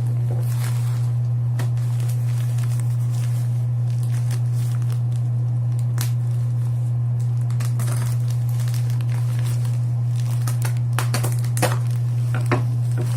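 Plastic packaging crinkling and crackling as it is handled, with a few sharper clicks near the end, over a loud steady low hum.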